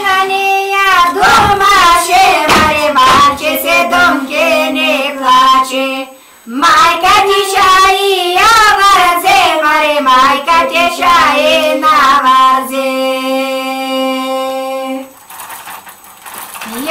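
Unaccompanied women's voices singing a Pomak folk song (pesna) in long, wavering notes, with a short breath pause about six seconds in. Near the end a long steady note is held for a couple of seconds, then the singing breaks off briefly and starts again.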